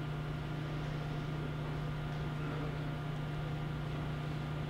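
Steady low electrical or ventilation hum with a faint even hiss: room tone, no speech.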